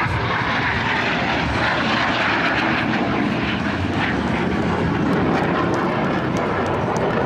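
A Blue Angels F/A-18 Hornet jet passing low overhead, its twin turbofan engines making loud, continuous jet noise. The sound is brightest and hissiest as the jet goes by, then shifts lower in pitch as it climbs away.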